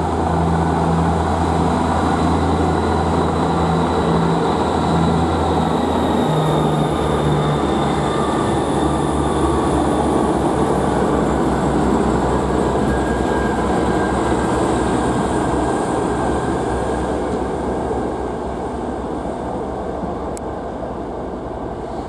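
Class 158 diesel multiple unit pulling away, its underfloor diesel engines running under power with a high whine that slides slowly lower. The low engine note changes about six seconds in, and the sound fades as the train draws away near the end.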